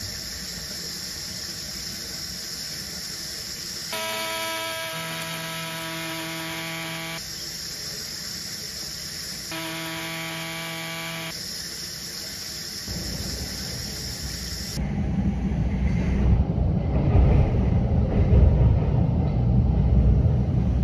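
A sink faucet running with a steady hiss, then a Hamilton Beach electric coffee grinder whining in two bursts of a few seconds each, then a subway train rumbling in motion, growing louder over the last several seconds.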